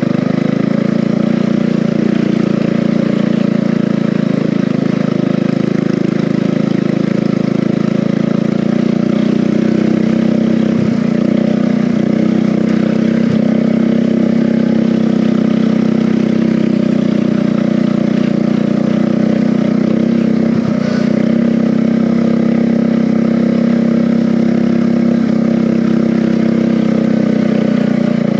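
Converted riding lawn mower's engine running loud and steady at an even speed, with a few faint knocks now and then.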